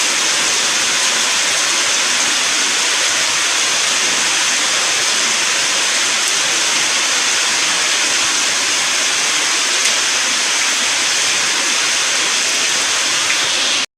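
Heavy rain pouring down in a storm, a steady loud rushing hiss that breaks off abruptly at the very end.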